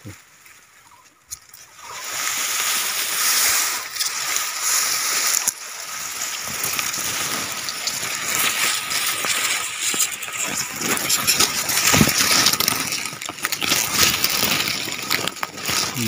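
Grass blades and dry leaves rustling and crackling right against the microphone as a hand pushes through the thicket, starting about a second and a half in.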